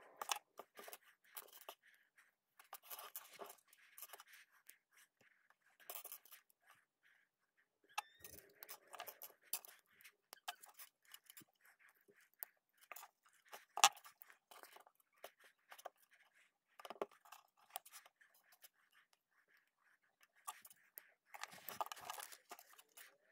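Small plastic construction-toy pieces being handled and pressed together: scattered sharp clicks and snaps, with a few short spells of crinkling from plastic bags or the booklet's pages.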